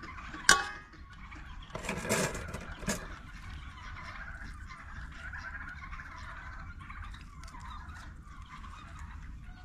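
Farmyard fowl calling steadily in the background, with a sharp metallic clink of a steel skewer about half a second in, then a burst of scraping and handling as meat is worked onto the skewer, and another clink about three seconds in.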